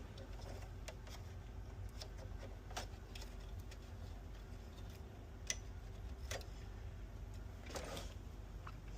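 Faint, scattered clicks and taps of console parts being handled during disassembly, a few seconds apart, over a steady low hum.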